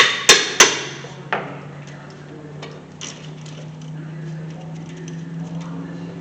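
Hammer blows on a wrench to break loose the brake caliper bolts: three quick metallic strikes with a short ring, then a lighter strike about a second later.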